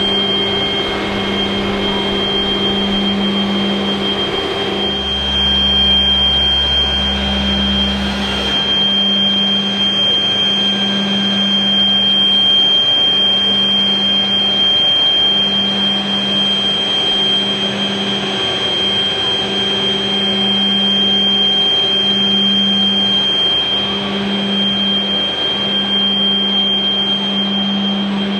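Steady machinery hum with a thin high-pitched whine over it. A low tone swells and dips about every second and a half, and a deeper rumble joins from about five seconds in until about eight and a half seconds in.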